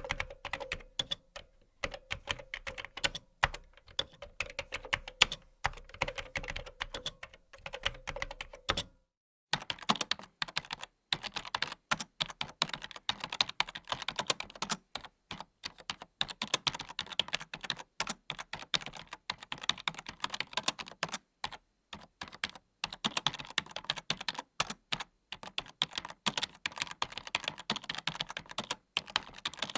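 Typing on a computer keyboard: fast, irregular key clicks. About nine seconds in there is a brief break, after which the typing is denser and busier. A low steady hum runs under the first stretch.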